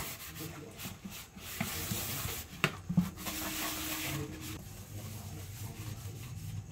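A plate being scrubbed by hand with a scrubber: a continuous scratchy rubbing, with a couple of sharp knocks about two and a half and three seconds in.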